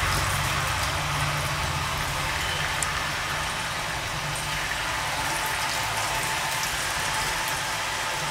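Raw potato sticks coated in spiced besan batter deep-frying in hot oil over a high flame: a steady, even sizzle.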